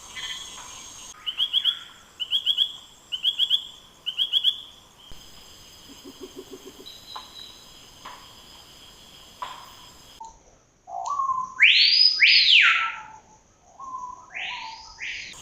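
Rainforest birds calling. Four short bursts of quick descending chirps come first, then a quieter stretch with scattered faint calls. Near the end come loud, looping whistled calls that rise and fall, over a steady high background drone.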